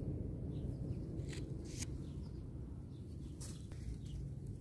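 Outdoor garden ambience: a low steady rumble with a few faint bird chirps, and three short sharp clicks spread over a few seconds.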